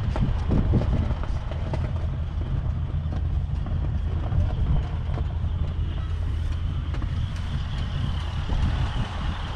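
John Deere 6145R tractor's 6.8-litre six-cylinder diesel engine idling steadily.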